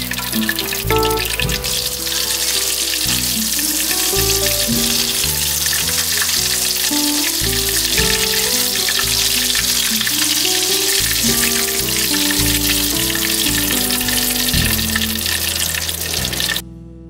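Hot oil sizzling steadily in a wok as panko-breaded oysters deep-fry, over background music; the sizzle cuts off suddenly near the end.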